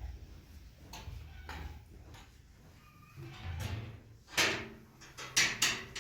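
A series of sharp knocks, faint ones in the first half and three loud ones in the second half.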